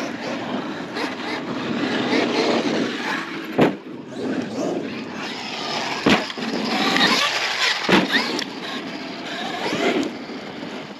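Traxxas X-Maxx electric RC monster truck running over dirt jumps. Its brushless motor whines, rising and falling with the throttle, over the noise of tyres on dirt. Three sharp knocks, about 3.5, 6 and 8 seconds in, come as it hits the ground.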